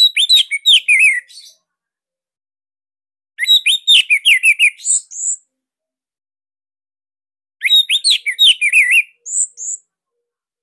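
Orange-headed thrush (anis merah) singing: three short phrases of quick, sweeping whistled notes, a few seconds apart.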